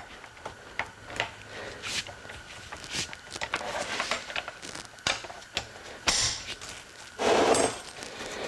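Tools and metal engine parts clinking and knocking as the engine is taken apart by hand, with a louder clatter about six seconds in and another around seven seconds.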